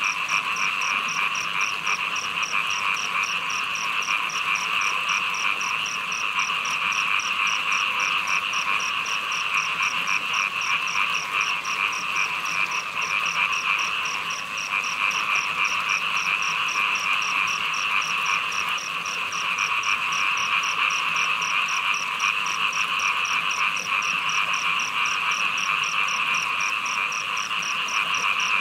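Dense chorus of many small frogs (khiat) calling without pause. A steady, high-pitched pulsing call, about two to three pulses a second, runs through it.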